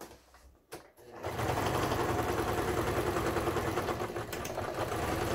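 Brother Star 1000 household sewing machine sewing a test seam after its repair, running steadily at speed with a rapid needle rhythm. It starts about a second in, after two light clicks.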